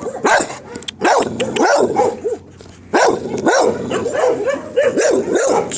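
Dogs barking repeatedly, the barks overlapping with some high yips mixed in.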